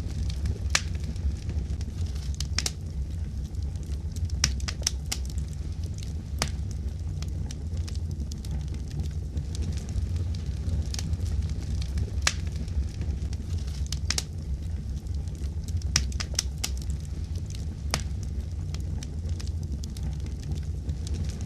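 Fire crackling: irregular sharp pops and snaps, several in quick clusters, over a steady low rumble.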